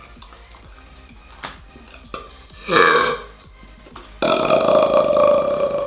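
A man belching: a short burp about three seconds in, then a long, loud burp of nearly two seconds starting about a second later, over background music.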